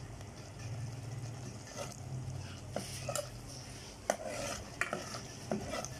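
A spoon stirring and scraping masala frying in a cooking pot, with a light sizzle and several sharp clinks of the spoon against the pot in the second half, the loudest about four seconds in. A steady low hum runs underneath.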